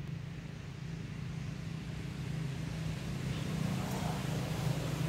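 Low, steady engine drone that grows gradually louder, like a motor vehicle drawing nearer.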